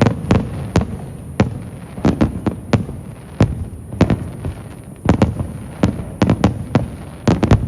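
Aerial fireworks shells bursting in quick, irregular succession: a string of sharp bangs, often only a few tenths of a second apart, with a dense cluster near the end.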